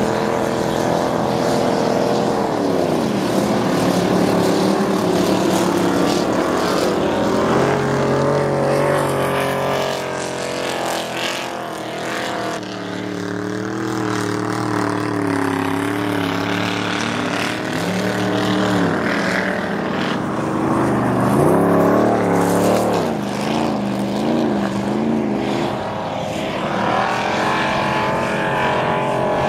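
Engines of several ice-racing cars running hard on a frozen-lake track, overlapping notes rising and falling as the cars accelerate, shift and lift off. Around two-thirds of the way through, one engine note revs up steeply and then wavers quickly up and down.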